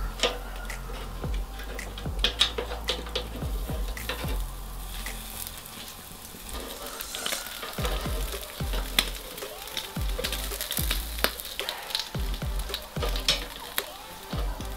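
Mackerel rolls on skewers sizzling over hot charcoal in a grill, with irregular crackles and pops.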